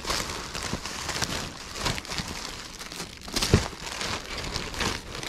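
Plastic wrapping and papers crinkling and rustling as they are handled and pulled apart, with a sharp knock past the middle.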